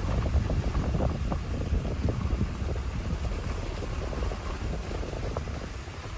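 Wind buffeting the microphone as a low, uneven rumble, with scattered soft knocks through it.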